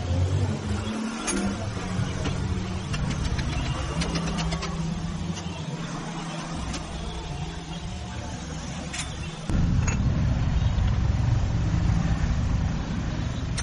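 Low rumble of a motor vehicle engine running on the street, with scattered sharp metallic clicks of hand tools. The rumble becomes louder abruptly about nine and a half seconds in.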